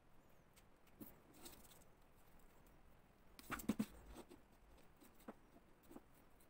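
Faint rustling and light clicks of thin wire leads being handled and twisted together by hand, with a short cluster of louder rustles about three and a half seconds in.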